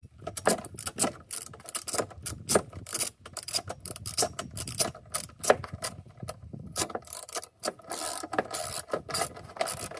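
Ratchet wrench clicking in quick irregular runs as fasteners are worked.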